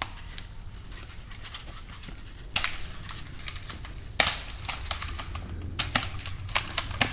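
Airsoft guns firing: two sharp shots about a second and a half apart, followed near the end by a quick scatter of smaller clicks and snaps.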